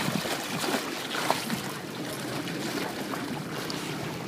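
Water splashing and sloshing as a hooked shark thrashes at the surface against the side of a boat.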